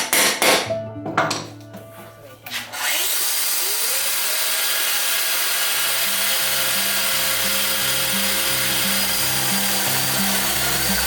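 A few sharp knocks, then an electric power tool's motor starts about three seconds in, its pitch climbing as it spins up, and runs steadily with a loud, even whir and hiss.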